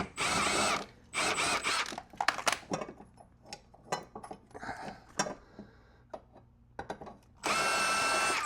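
Cordless power tool run in three short bursts on the 9/16 mower blade bolt, with small clicks and clanks of tool and metal between the bursts.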